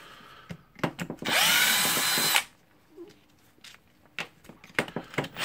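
Cordless drill-driver with a screwdriver bit running in a short burst of just over a second, its whine rising as the motor spins up, then stopping. Scattered handling clicks follow, and the drill starts again at the very end.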